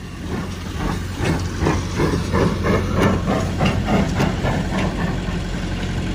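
Small six-coupled steam tank engine chuffing as it moves off slowly, about three exhaust beats a second, with hissing steam. The beats fade about five seconds in, leaving a steady low rumble.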